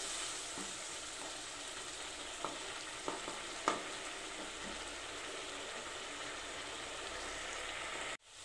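Grated carrot cooking in milk and sugar, bubbling and sizzling in a nonstick pan while a wooden spatula stirs it. The sugar has loosened the mix into a syrupy liquid that is cooking down. A few light knocks of the spatula on the pan come through, and the sound cuts out abruptly just before the end.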